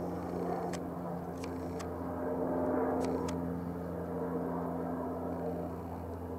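A steady motor hum holding a few fixed pitches, with a handful of brief light clicks.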